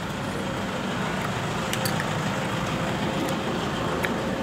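Steady rumble of road traffic, with a few light clicks scattered through it.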